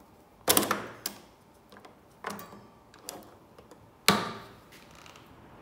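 Self-adjusting Kreg 6-inch bench clamp's toggle mechanism clacking as it is released and clamped down again on a plywood block. Two loud metallic clacks, about half a second in and about four seconds in, with a few lighter clicks between.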